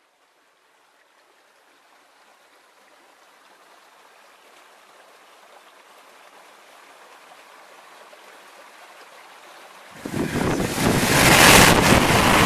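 Rushing water, like a stream, fading in slowly from silence. About ten seconds in it turns suddenly much louder and fuller.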